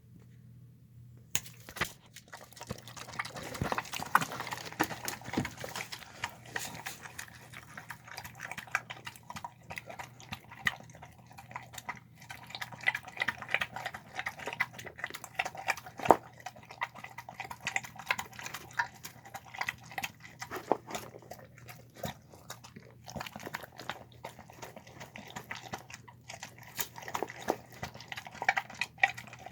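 A pit bull–shar-pei mix dog eating soft homemade chicken with lentils, carrots and rice: chewing and mouth noises in a fast, irregular run of clicks, starting about a second and a half in.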